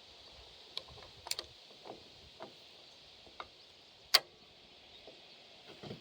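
Small metal clicks and taps of pliers on a carburetor, gripping at the stuck float hinge pin: a handful of light ticks and one sharp, louder click about four seconds in.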